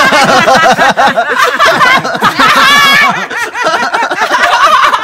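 People laughing hard together in quick, loud pulses, with a high-pitched squeal of laughter about halfway through.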